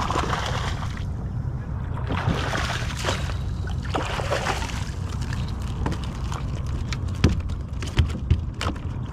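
Hooked speckled trout thrashing and splashing at the surface beside a kayak, then water sloshing as a landing net scoops it out, over a steady low rumble. A few sharp knocks come near the end as the fish is lifted aboard in the net.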